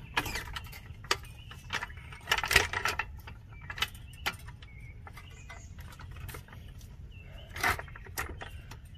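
Scattered metal clicks and clanks, the loudest cluster about two and a half seconds in, from a floor jack with a rag-padded saddle being set under the brake rotor to push up on the spindle.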